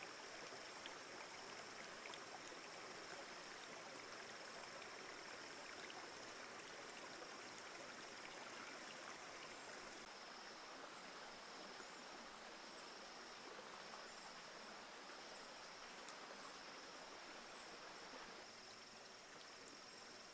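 Faint steady hiss with a continuous high insect trill running through it, which breaks into short, evenly spaced pulses about halfway through. A few faint ticks.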